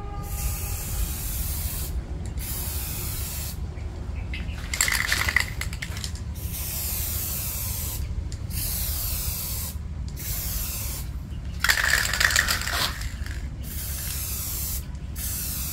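Aerosol spray-paint can spraying a glossy coat in a series of one- to two-second hisses with short breaks between, two of the stretches louder than the rest.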